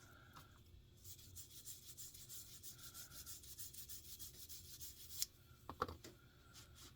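Faint, rapid rubbing strokes as grime is scrubbed off a guitar pickup. The rubbing runs for about four seconds and stops abruptly, followed by a couple of light clicks.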